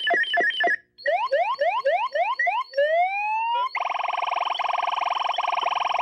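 Boss PH-3 Phase Shifter pedal making electronic noise effects through a small amplifier as its knobs are turned. Fast repeating pulses cut out briefly, then come rising chirps about four a second and one longer upward sweep, and from about four seconds in a steady buzzing tone.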